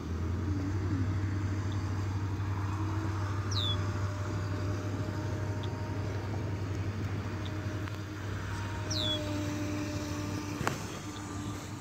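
Electric motor of a Rage Black Marlin RC boat running out on the water: a faint hum that comes and goes over a steady low rumble. There are two short high falling chirps, and a sharp click near the end.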